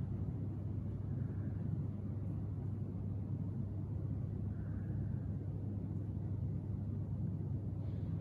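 Steady low room hum and rumble, even throughout, with no clear events over it.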